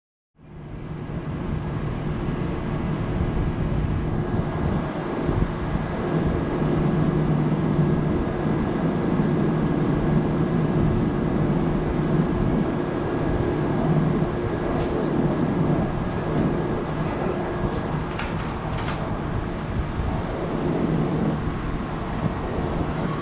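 Kintetsu 23000 series Ise-Shima Liner electric train standing at the platform, its onboard equipment giving a steady hum with a few held tones, some of which drop out about three quarters of the way through. A few faint clicks late on.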